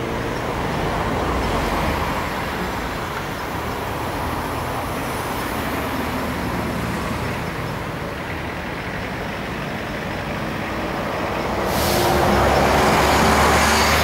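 Steady road traffic noise with a low engine hum. It grows louder near the end as a heavy vehicle comes close.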